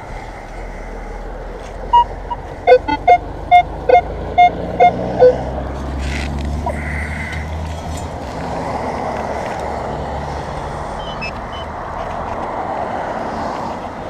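Minelab X-Terra Pro metal detector giving a quick string of about eight short beeps, starting about two seconds in, as the coil passes over a buried coin target. A steady low rumble runs underneath.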